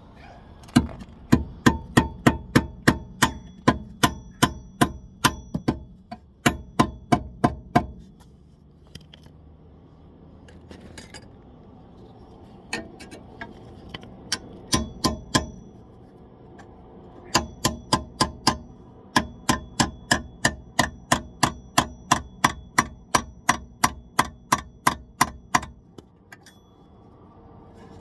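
Steel hammer blows on metal, about three a second in long runs broken by short pauses, each strike ringing briefly: hammering out the rear wheel bearing of a 2014 Scion xB.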